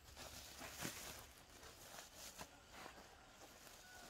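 Faint rustling and crinkling of a woven plastic sack as a hand opens it and reaches in for coconut coir, with a stronger rustle about a second in.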